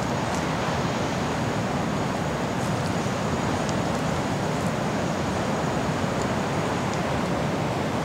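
Steady, even rushing noise throughout, with a faint thin high whine that stops about seven seconds in.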